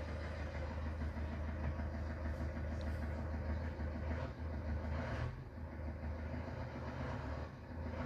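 Ford Transit diesel engine idling steadily as a low, even hum after a cold start, heard as it plays back through a television's speakers.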